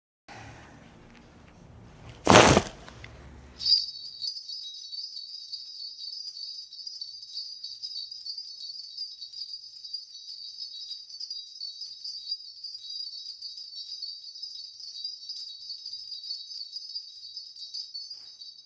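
A single loud knock, then a Korean shaman's cluster of ritual brass bells shaken continuously in a steady, shimmering jingle, as is done to call on the spirits during a divination reading.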